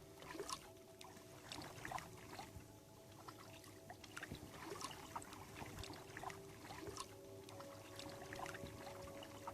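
Sea kayak being paddled: water splashing and dripping off the paddle blades in irregular small splashes and trickles.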